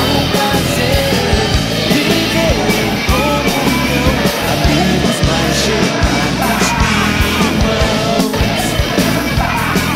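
Loud rock-style band music with a singing voice over a steady beat.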